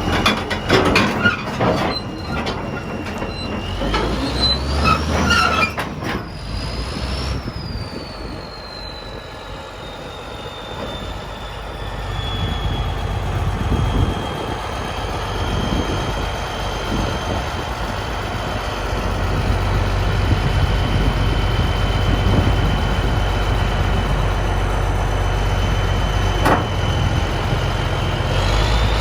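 Caterpillar D7H crawler bulldozer running: a deep diesel engine drone with metallic clanking in the first couple of seconds. A high whine climbs and falls in pitch a few seconds in and again near the end, then holds steady in between.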